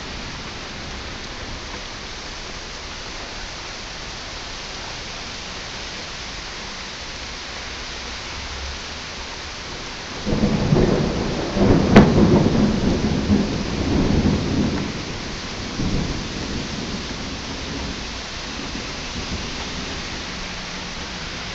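Heavy rain pouring steadily. About halfway through, thunder breaks in suddenly with one sharp crack, then rumbles for several seconds and fades back under the rain.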